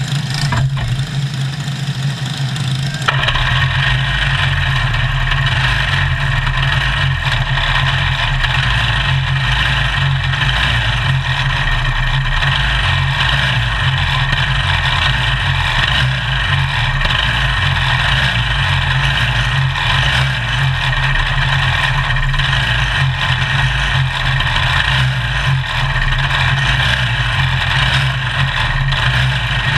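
Engines of small race cars idling in an indoor hall; about three seconds in a much louder engine starts up close by and runs on steadily at idle.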